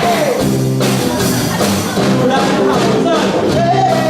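Live band music with guitars and a singer's voice; a sung line slides downward near the end.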